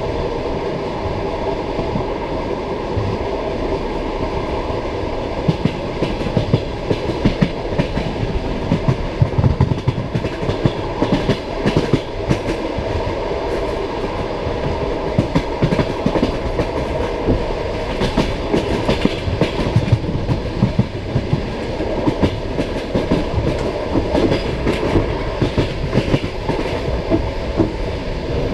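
Passenger train carriage running on the rails: a steady low rumble with the deep clickety-clack of the wheels knocking over rail joints, the knocks coming thick and uneven from about five seconds in.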